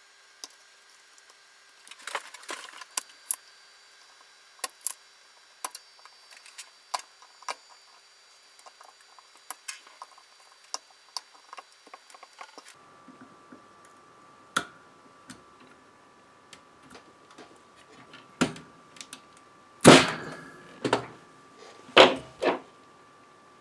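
Small metallic clicks and taps of a soldering iron and needle-nose pliers working the solder terminals of a power transformer. Near the end come several louder knocks and clatters.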